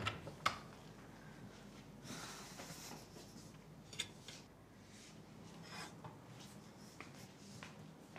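Quiet clinks and rubbing of plates and cutlery being handled at a kitchen counter, with a few short sharp clicks spread through.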